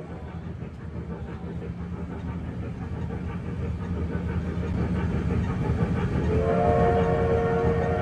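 Wattman electric mall train running with a low rumble that grows steadily louder, then about six seconds in its sound system blows a multi-tone steam-whistle chord that holds for about two seconds.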